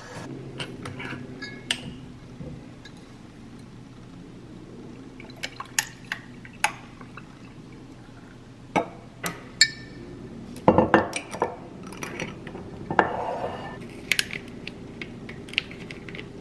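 Kitchen clatter of glass and caps: sharp clinks and taps from a bottle and a ribbed drinking glass, with cold brew coffee poured over ice in the glass and the ice clinking, the pouring heaviest a little past the middle.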